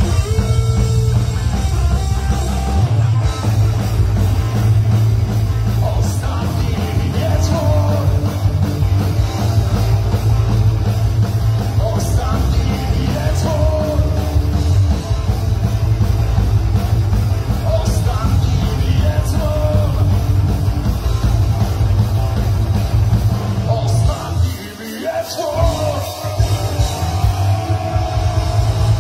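Live rock band playing loudly: distorted electric guitar, bass guitar and drum kit. About three-quarters of the way through, the low end drops out for a couple of seconds before the band comes back in.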